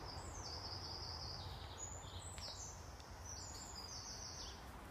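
Faint bird song, a run of short high notes stepping up and down in pitch, over a steady low outdoor rumble.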